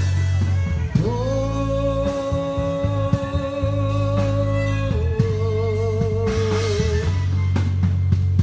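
Live worship band music with a long held note over a steady bass line, then a wavering note near the middle, leading into a gospel song.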